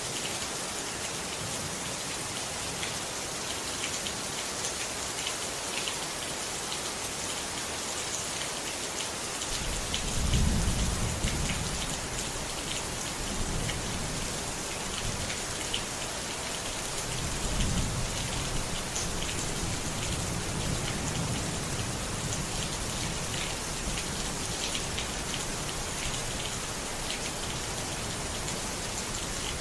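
Steady rain falling, a dense hiss of drops. Rolls of thunder rumble in about a third of the way through and swell again a little past halfway, then fade to a low background rumble.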